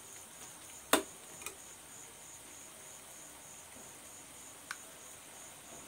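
A metal utensil clicks sharply once against a stainless-steel pan about a second in, with a lighter tap near the end. Under it runs a faint, high-pitched chirping pulse, repeating evenly.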